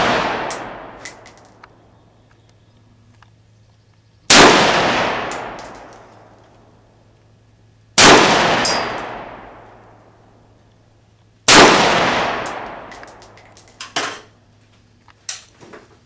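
Rock River Arms CAR-15 (AR-15 carbine) fired in slow single shots, three of them about four seconds apart, each with a long echoing decay. A light metallic tinkle follows each shot, typical of ejected brass landing, and a few small clicks of rifle handling come near the end.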